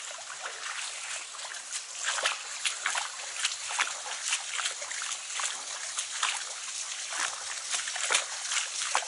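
Footsteps crunching on a stony path, about two a second, over the steady hiss of running water.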